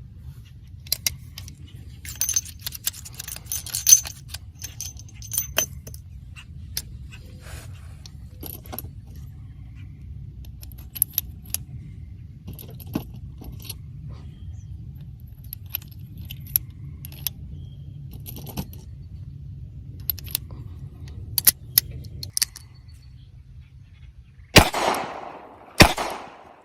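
Smith & Wesson Model 60 stainless-steel five-shot revolver being reloaded: scattered metallic clicks and clinks of cartridges and the cylinder being handled. Near the end come two loud gunshots about a second apart, each with a ringing tail.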